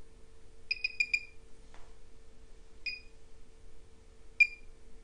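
Two ClareBlend Mini microcurrent devices beeping: a quick cluster of four short high beeps about a second in, then single beeps about every second and a half. The two units are drifting back into sync after beeping out of step.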